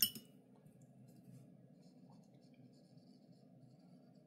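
Faint scratching of a synthetic watercolour brush stroking paint onto paper while swatching, over a steady low hum. The last of a quick run of sharp taps comes right at the start.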